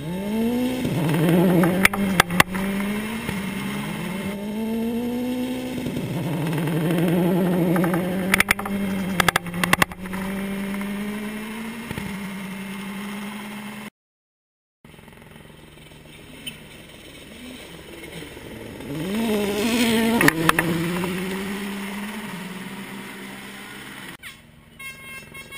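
Rally car engines revving hard through a gravel corner, the pitch rising and dropping again and again with gear changes and throttle lifts, mixed with several sharp cracks. After a brief silent break, a second car's engine swells up and fades away.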